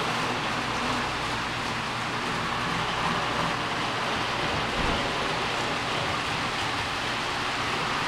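Model railroad freight train running on the layout track: a steady hissing rumble of wheels and motors with a faint low hum underneath.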